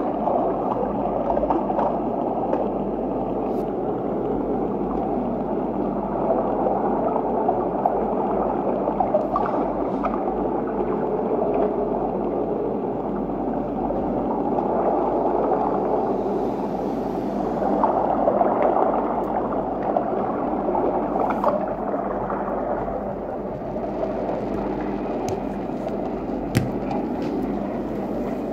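Steady bubbling and rushing water: underwater aquarium ambience, with a few faint ticks and one sharper click near the end.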